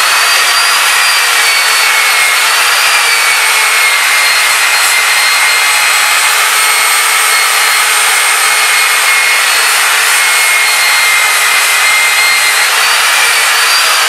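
Corded angle grinder running at full speed with a steady high whine, its disc grinding down the wooden axe handle at the head with a rough grating noise. The pitch dips slightly now and then as the disc bears into the wood.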